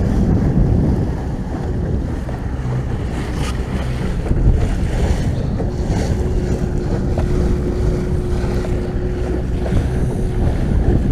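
Wind buffeting the microphone over water rushing past a small fishing boat's hull as it runs at sea under outboard power. A faint steady tone comes in about halfway through and fades near the end.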